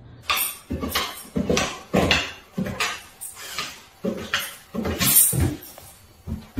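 Dog barking over and over in a quick string, about two barks a second.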